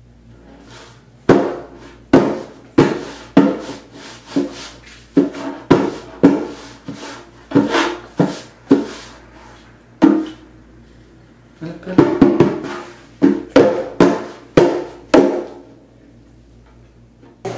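Hands slapping the rawhide head of a rope-tuned djembe: irregular single strokes, about two a second, each with a short ringing tone, pausing briefly twice and stopping a couple of seconds before the end.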